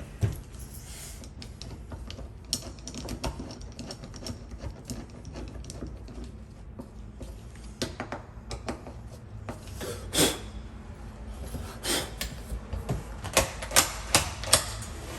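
Irregular clicks, clacks and knocks of small metal hardware and tools being handled, with a heavier knock about ten seconds in and a quick run of sharp clicks near the end.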